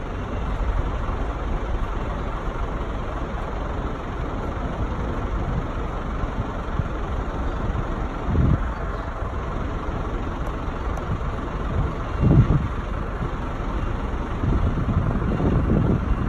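Steady low rumble of idling engines, with two short louder low swells about eight and twelve seconds in.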